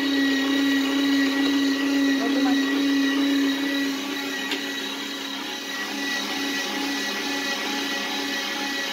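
Electric meat grinder running with a steady motor hum as meat is pushed down its feed tube with a pusher. It gets a little quieter about four seconds in.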